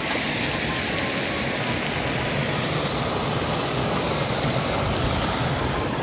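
Steady rushing noise that starts abruptly and holds at an even level.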